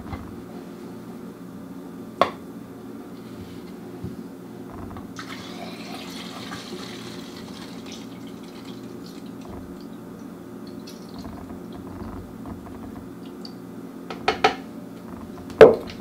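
Film developer being poured from a plastic jug into a plastic film developing tank, a soft liquid pour about five to eight seconds in. There is a single knock about two seconds in, and a few sharp clicks and knocks near the end, the loudest just before the end.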